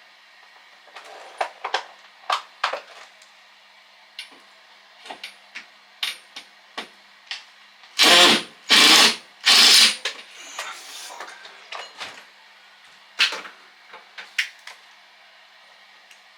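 Tools and metal pipe fittings handled during plumbing work: scattered clicks and knocks, with three short, loud bursts about halfway through.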